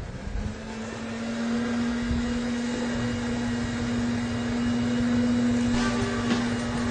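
Cellulose insulation blowing machine running, air and loose cellulose rushing through the hose into a wall cavity over a steady hum; it builds up over the first second or so and then holds steady, with a few light ticks near the end.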